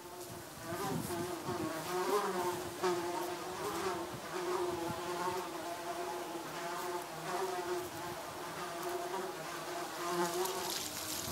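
A flying insect buzzing, a steady hum that wavers slightly in pitch as it moves about.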